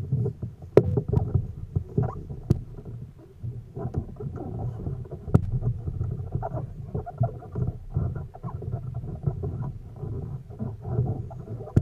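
Water sloshing and splashing around a kayak, muffled, with scattered sharp knocks, the clearest about a second in and just past five seconds.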